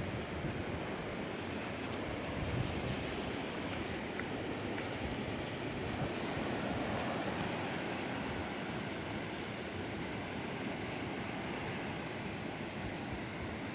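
Ocean surf breaking and washing on a sandy beach, a steady rushing wash, with gusts of wind buffeting the microphone.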